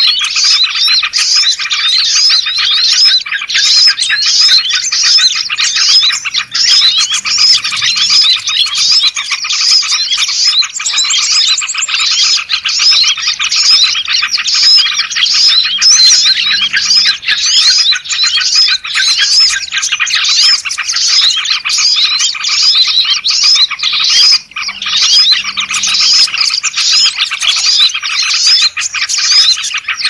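Dense, loud chorus of many small songbirds chirping and whistling over one another without a break, a bird-lure (pikat) recording made to call small birds in, with bulbul calls such as yellow-vented bulbul (trucuk) and sooty-headed bulbul (kutilang) in the mix.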